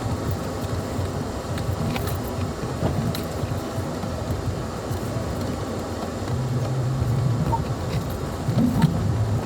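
Off-road vehicle driving on a dirt trail: a steady low engine and tyre rumble with scattered rattles and knocks.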